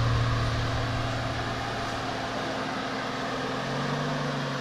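Jeep Wrangler Unlimited's V6 engine running steadily at low revs as the Jeep crawls over a dirt trail, with a slightly higher engine note joining near the end.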